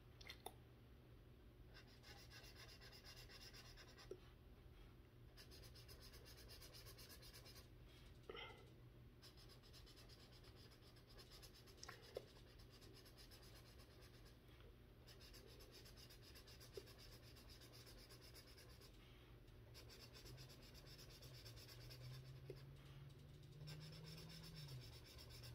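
Felt-tip marker rubbing back and forth on coloring-book paper in stretches of quick, faint strokes with short pauses between, and a few small clicks.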